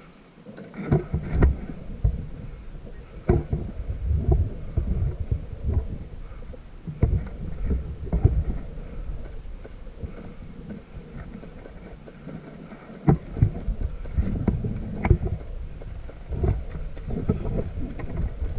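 Irregular thumps and knocks over a low rumble, coming unevenly throughout, with a cluster of louder knocks about a second in and again near the end.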